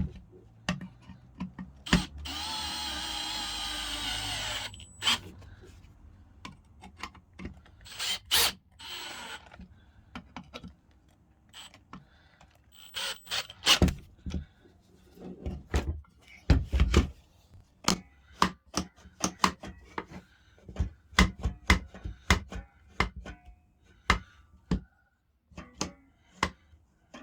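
A power drill-driver runs steadily for about two and a half seconds, driving in the jointer's bolts. Then comes a long run of short clicks, clacks and knocks as the tool's metal and plastic parts are handled and fitted.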